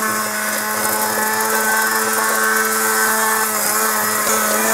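Hand-held immersion blender motor running at a steady pitch while it purées a cooked cabbage sauce in the pot.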